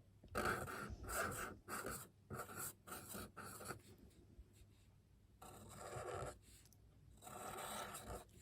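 Strokes on watercolour paper: a quick run of short strokes, then two longer ones about two seconds apart.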